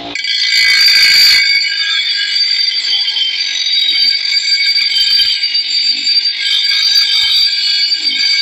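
Bench grinder wheel grinding the steel edge of a long bolo knife. It gives a loud, high-pitched screech made of several steady tones, loudest and hissiest in the first second and a half.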